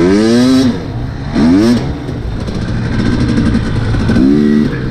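Husqvarna TE250 dirt bike engine being ridden, its pitch climbing and dropping several times as the throttle opens and closes, with a sharp rise about a second and a half in and steadier stretches in between.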